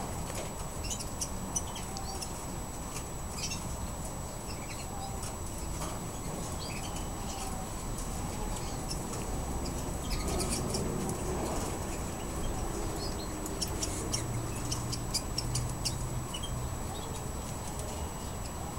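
Scattered short, faint chirps and ticks from caged canaries, over a steady low hum and a thin, steady high whine.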